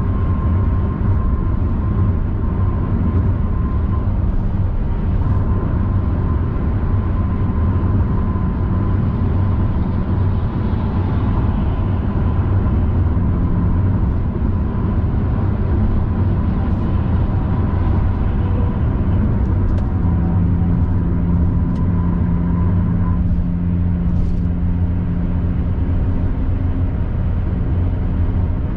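Car cruising at highway speed, heard from inside the cabin: a steady rumble of tyres and engine with a low hum. A faint thin high whine runs under it and stops about three-quarters of the way through.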